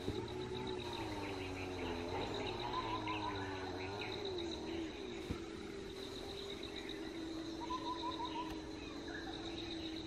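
Insects trilling steadily, with short bird chirps during the first half. Under them runs a low wavering hum that settles into a steady tone about halfway through.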